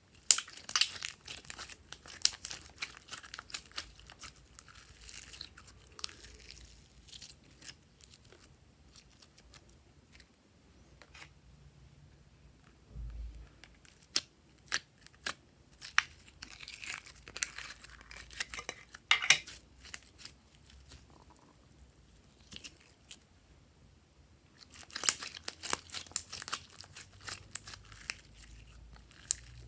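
Slime being worked by hand: three stretches of dense sticky crackling and clicking, with quiet gaps between them.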